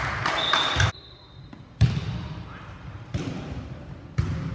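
A volleyball being struck by hand during a rally: three sharp slaps about a second apart, the first the loudest, echoing in the gym hall. Players' voices call out just before the hits.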